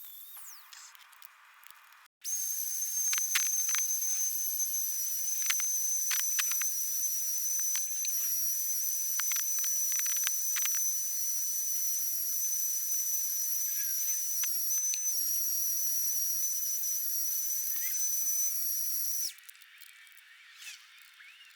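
A high-speed motor whining steadily at a high pitch with an airy hiss, switched on about two seconds in and cut off near the end, with a few clicks over it.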